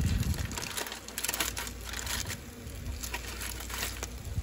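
Aluminium foil crinkling as a foil packet is pulled open by hand, with a dull knock at the very start.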